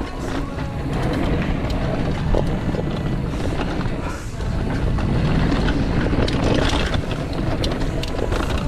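Mountain bike rolling fast down a dry dirt trail: knobby tyres rumbling over loose dirt and gravel, with sharp rattles and knocks from the bike over bumps and wind buffeting the camera's microphone.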